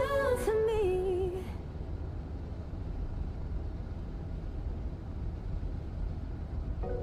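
A female K-pop vocal line ends in the first second and a half. After it comes a steady low rumble with a faint hiss: the road noise of a car interior driving in the rain.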